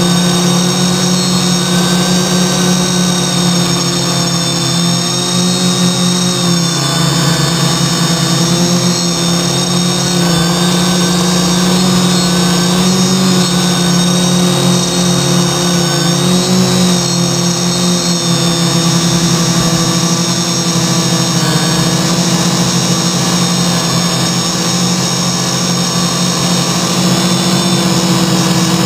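Six brushless motors and propellers of a CarbonCore Y6 multirotor, mounted in three coaxial pairs, droning steadily in flight, heard close up from a camera hard-mounted on the frame. The pitch wavers slightly now and then as the motor speeds adjust.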